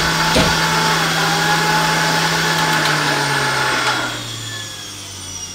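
Electric centrifugal juicer's motor running with a steady hum and whine, then switched off about three seconds in and winding down, its pitch falling as the spinning basket slows.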